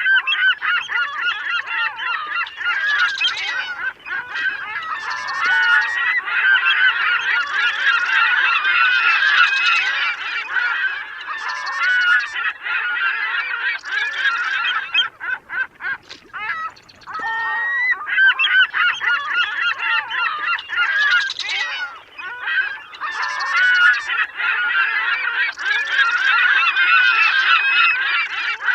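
A flock of gulls calling, many harsh cries overlapping one another, with a short break about halfway through before the calling starts again.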